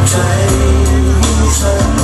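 A male singer singing a pop song live into a microphone over loud backing music with a heavy bass line and a steady drum beat.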